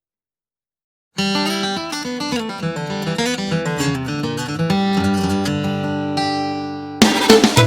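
Song intro: silence for about a second, then a picked acoustic guitar melody, with the full band coming in suddenly and louder near the end.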